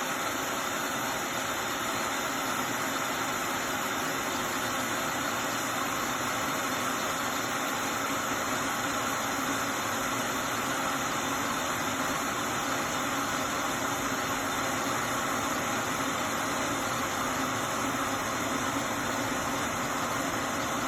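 Hamilton Beach 1-litre, 1500-watt glass electric kettle heating water just short of the boil: a steady rushing hiss as bubbles form on the heating plate and the water steams.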